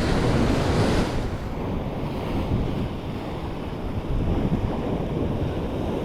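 Ocean swell washing against a rock ledge, with wind buffeting the microphone; the wash is a little louder for the first second, then settles into a steady rush.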